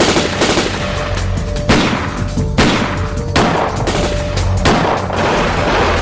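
Automatic rifle and submachine-gun fire in a film shootout, many rapid overlapping shots with a handful of louder ones, over dramatic background music.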